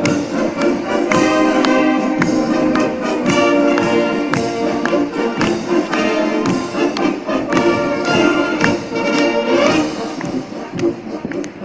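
Massed Bavarian brass bands playing a piece together, trumpets and trombones over sharp percussion strokes.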